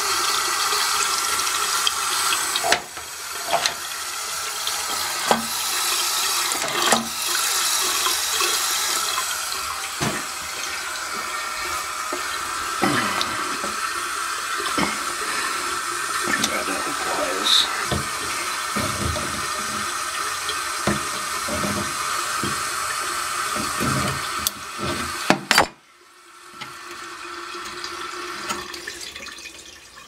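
Water running continuously through a toilet's tank fill valve, hissing and splashing from the refill tube into the overflow tube: the toilet keeps running, the sign of a fill valve that won't shut off and needs replacing. A few light knocks come through the hiss, and the running cuts off suddenly near the end.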